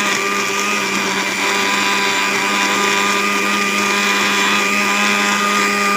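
Electric blender running steadily, grinding chopped raw green mangoes in water into a pulp: a continuous motor hum at an unchanging pitch with a churning hiss over it.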